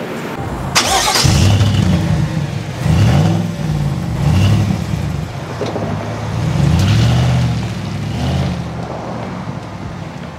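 A 2023 Chevrolet Silverado 1500 pickup's engine accelerating hard. Its pitch climbs and drops back several times as it shifts up through the gears. A short sharp noise comes just under a second in.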